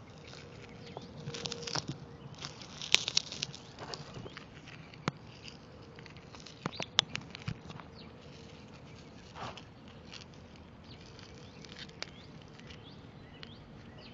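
Handling noise: scattered light clicks, taps and rustles from a hand-held camera and the shattered pieces of an iPod on gravelly soil, with the sharpest click about three seconds in. A faint steady hum runs underneath.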